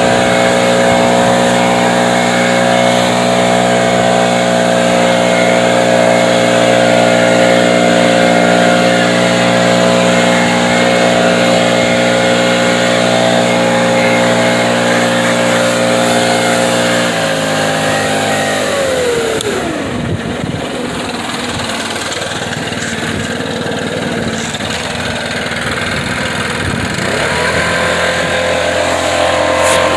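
Gas-powered leaf blower engine running steadily at high throttle, blowing snow. About two-thirds of the way through, the throttle is let off and the pitch falls to a low idle, then the engine revs back up near the end.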